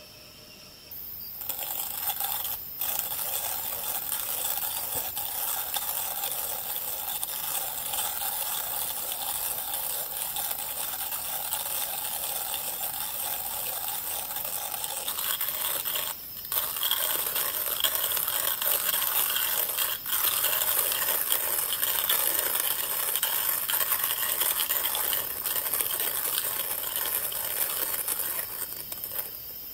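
Hand coffee grinder crunching through coffee beans as its crank is turned, a steady gritty rattle that starts about a second in, pauses briefly about halfway through and resumes louder.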